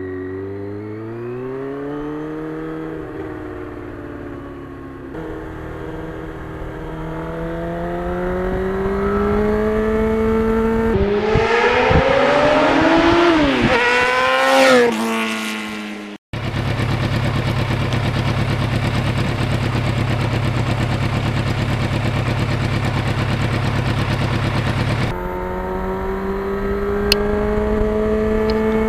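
1991 Yamaha FZR1000's inline-four engine on the road, its pitch climbing and falling as it accelerates and changes gear. The sound changes abruptly several times, with a brief dropout about halfway through, and settles into a steady run for several seconds near the end.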